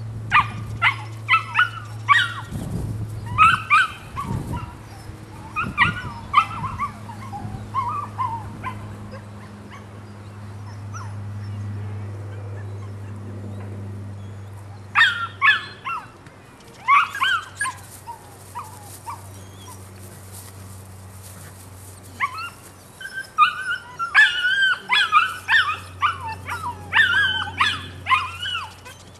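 Belgian Malinois puppy yelping and whining while being handled, in bursts of short high-pitched cries that come in three spells, over a steady low hum.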